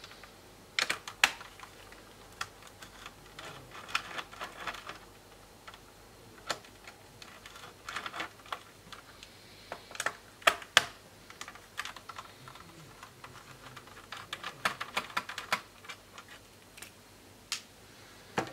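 Screwdriver working at the screws in a Toshiba Satellite C660D laptop's plastic base: irregular small clicks, taps and short rattles of metal on plastic. The screws are stubborn to get out.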